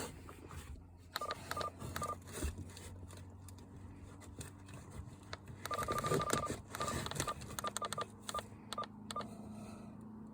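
CB radio giving a string of short electronic beeps at one pitch in irregular runs, one beep held longer about six seconds in. A faint steady low hum comes in late on.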